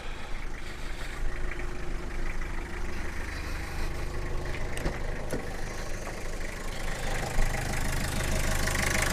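A 1992 Toyota Hiace's 2.4-litre four-cylinder diesel engine idling steadily, growing a little louder near the end.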